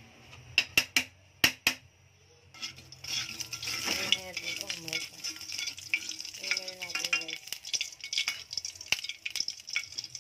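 A few sharp knocks on a frying pan. About two and a half seconds in, hot cooking oil starts sizzling and crackling in the pan as a spatula stirs it, and this keeps on to the end.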